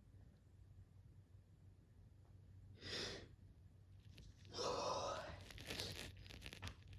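A person sneezing: a short sharp breath about three seconds in, then a longer, louder sneeze a second and a half later that breaks up into a rapid run of short crackly bursts before stopping near the end.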